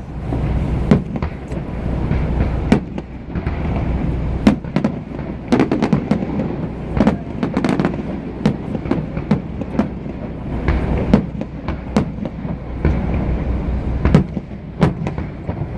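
Fireworks going off in a steady run of sharp bangs, several a second, over a continuous low rumble.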